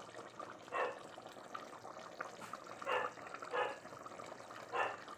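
Thick pork humba sauce bubbling at a simmer in a pot as it reduces and turns sticky. A steady bubbling runs underneath, with four short, louder bubble pops.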